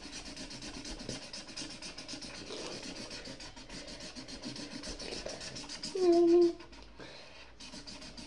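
Pen on paper, scribbling back and forth in many quick scratchy strokes a second as a picture is coloured in, pausing briefly near the end. A short hummed note sounds about six seconds in.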